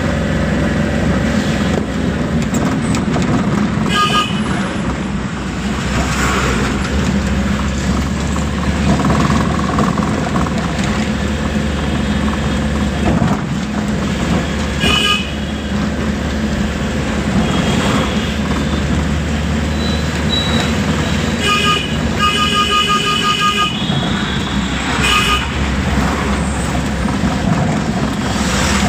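Vehicle engine and road noise heard from inside a moving vehicle's cab, with a horn honking several times: short toots about 4 s in and again around 15 s, then a cluster of honks in the second half including one held for about two seconds.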